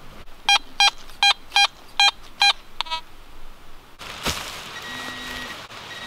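Handheld metal-detecting pinpointer beeping six times in quick, even succession, then once more faintly. After that comes a scraping, crumbly noise of a hand digger working soil.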